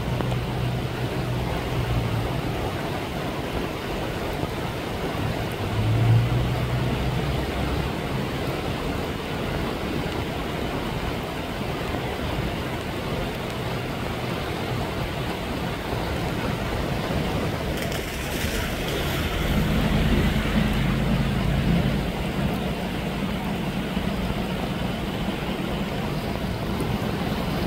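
Swollen floodwater rushing steadily down a concrete drainage channel, heard as a constant noisy rush. A vehicle engine's low hum sits under it near the start and again through the second half.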